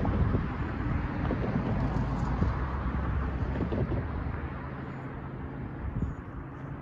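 Cars driving across a railroad grade crossing: steady tyre and engine noise that slowly fades as they pass.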